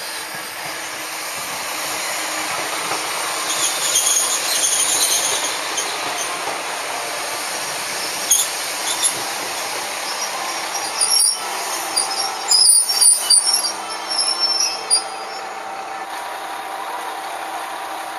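Hitachinaka Seaside Railway diesel railcar train, led by a Kiha 37100 railcar, rolling slowly into the station with its engines running. Its wheels let out repeated high-pitched squeals, a few seconds in and again through the middle, loudest about two thirds of the way through.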